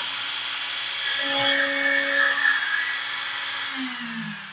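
LongMill CNC's router spindle running with a steady high whine as the V-bit finishes its last cuts, then switched off near the end, its pitch falling as it winds down.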